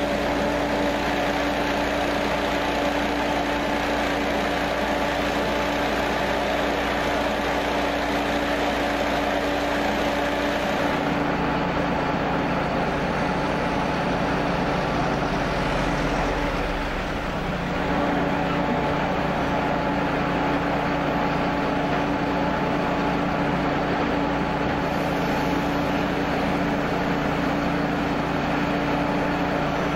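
Fire engine's engine running steadily with a constant hum.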